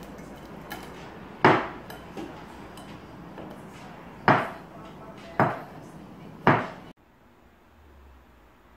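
A metal blade knocking against a ceramic plate while cutting through a pizza, four sharp clacks a second or so apart. About seven seconds in the sound cuts off suddenly to quiet room tone.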